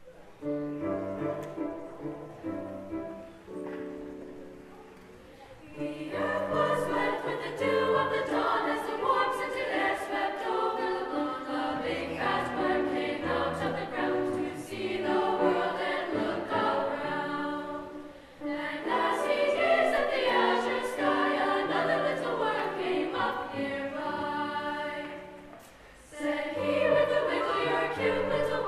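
Women's choir singing in harmony with grand piano accompaniment. It starts softly and fills out about six seconds in, with short drops in level around eighteen and twenty-six seconds.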